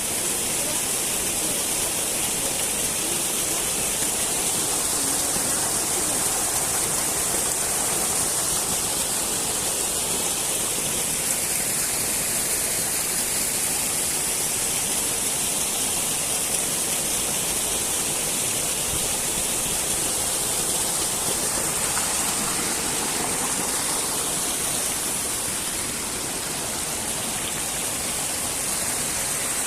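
Mountain stream water rushing and splashing in a steady, unbroken hiss, heavy in the high end.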